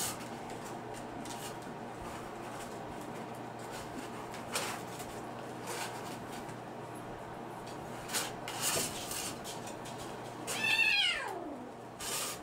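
A Bengal kitten meows once near the end, a long call that falls steeply in pitch, over a few brief rustles and light knocks from kittens at play.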